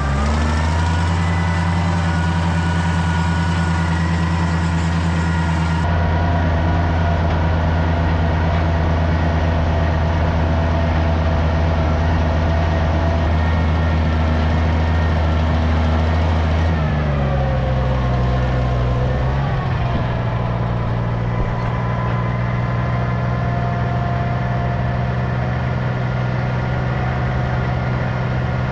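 Tractor engine running steadily while pulling a hay rake. It picks up speed just after the start and eases down to a lower engine speed about two-thirds of the way through.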